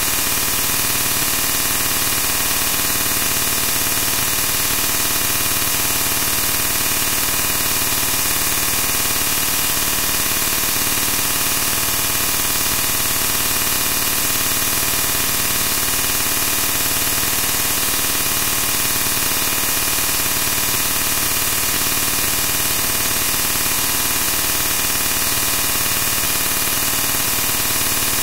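Steady static hiss with no change in level or character, brightest in the high range.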